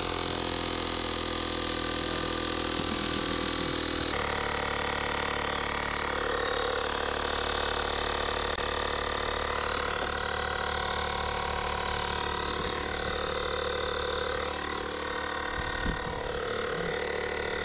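Portable electric air pump running with a steady motor drone, inflating a spearfishing float through a hose.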